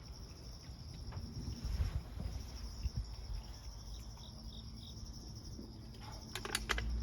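Insects singing: a steady, high-pitched buzzing drone. Low thumps and rumble sit under it, and a few sharp clicks come near the end.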